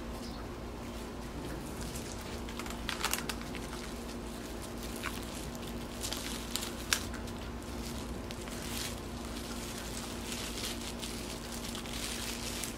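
Plastic wrapping and shredded-newspaper packing crinkling and rustling in short scattered bursts as a potted plant is handled and unwrapped, over a steady low hum.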